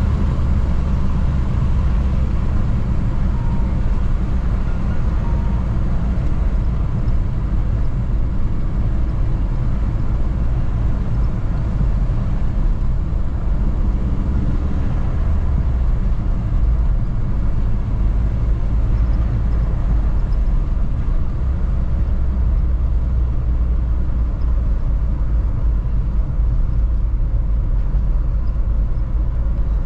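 Audi A3 1.8T's turbocharged four-cylinder engine, with K03 turbo and cone air filter, running steadily while driving, a low rumble mixed with road noise.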